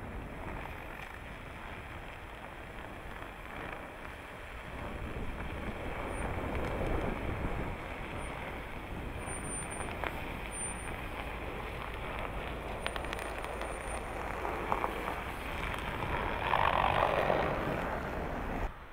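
Ram Power Wagon pickup truck's 6.4-litre HEMI V8 running as the truck drives slowly past over packed snow, growing louder about six seconds in and loudest near the end.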